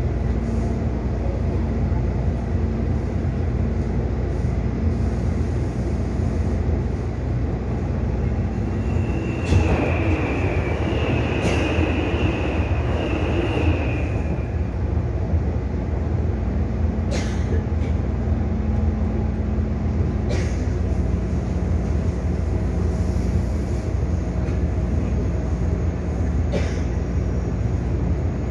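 Taipei Metro C301 train with IGBT-VVVF traction running at speed, heard from inside the car: a steady rumble of wheels and motors with a low hum. About ten seconds in it grows louder and a high squeal lasts about four seconds, and a few sharp clicks follow later.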